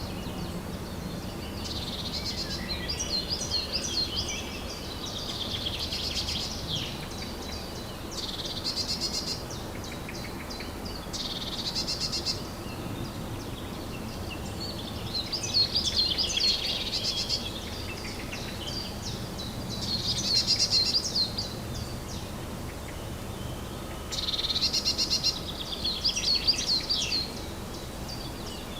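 Woodland songbirds singing, short phrases of rapid trilled notes every few seconds, over a steady low background hiss.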